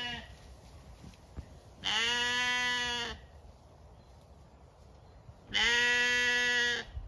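Zwartbles sheep bleating: two long, steady bleats a few seconds apart, each lasting a little over a second, with the end of another bleat trailing off at the start.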